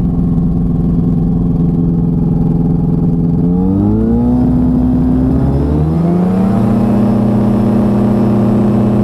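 Light experimental aircraft engine, heard through a helmet-mounted lav mic, running steadily and then throttled up for takeoff about three and a half seconds in. Its pitch rises, dips briefly, then climbs again and holds steady at higher rpm.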